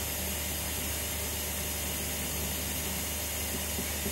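Steady background hiss with a faint low hum, even throughout, with no distinct events.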